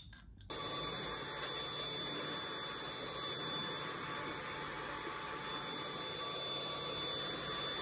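Dyson cordless stick vacuum running steadily as it is pushed across the floor: a steady rush of air with a thin high whine. It cuts in abruptly about half a second in.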